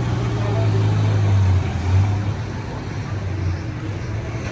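A vehicle engine running with a steady low hum, a little quieter from about a second and a half in.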